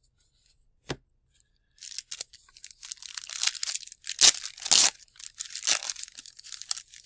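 A 1990 Score hockey card pack's wrapper being torn open and crinkled by hand: a single tap about a second in, then continuous crackling tears, loudest about four to five seconds in.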